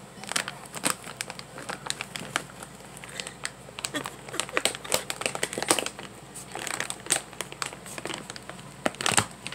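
A cat's head and paws working inside an open bag of dry kitten food, the bag crinkling and crackling in quick, irregular bursts.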